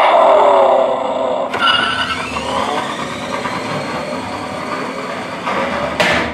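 Battery-operated Road Rippers toy car playing its recorded engine-revving sound through its small speaker, switching about a second and a half in to a rising whine as it drives off. A sharp knock comes near the end.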